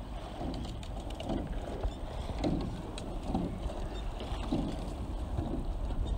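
Rowing boat out on the water, with soft muffled pulses about once a second over a steady low wind rumble on the microphone.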